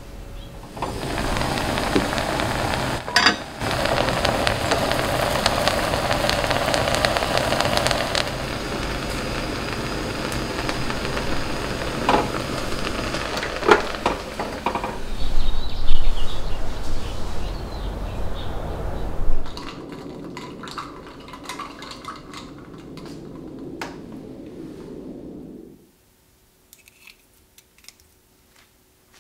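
Kitchen work sounds: a steady hiss for much of the time, with a few clinks of dishes and utensils. It grows quieter later on and ends in a few light clicks.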